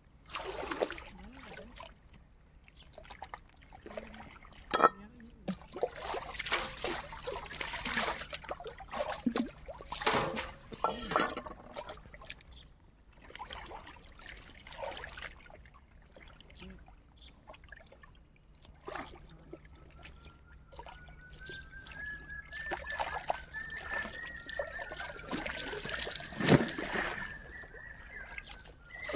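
Pond water splashing and sloshing as wet clothes are swished and scrubbed by hand, in irregular bursts with a few sharper slaps, the loudest near the end. A faint high tone rises slowly through the last third.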